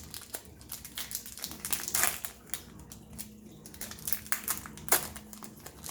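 Trading-card pack wrapper crinkling as it is handled and opened, a string of sharp, irregular crackles.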